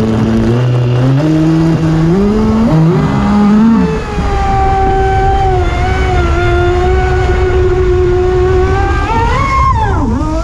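The brushless electric motor of a Traxxas Spartan RC deep-V speedboat whines at speed over water rushing past the hull. The whine rises and falls with the throttle, then holds steady for several seconds. Near the end it drops sharply as the throttle comes off, and it climbs again.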